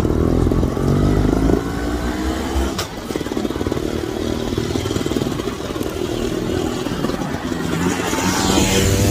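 Trials motorcycle engines running and revving on the move, growing louder near the end.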